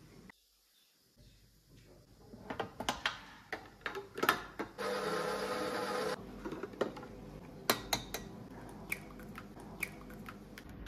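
Ingredients going into a stainless-steel stand-mixer bowl: scattered clinks and taps of small bowls against the metal, a steady pouring sound lasting about a second midway, and sharp taps near the end as eggs are cracked over the bowl.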